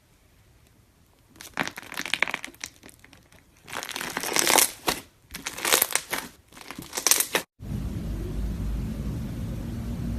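Slime being squeezed and pressed, crackling and popping in four bursts. About three quarters of the way through, it cuts off abruptly and a steady low rumble takes over.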